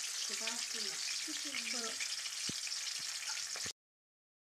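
Battered chicken deep-frying in hot oil in an iron wok: a steady, dense crackling sizzle, with a few light knocks in the second half. The sound cuts off suddenly near the end.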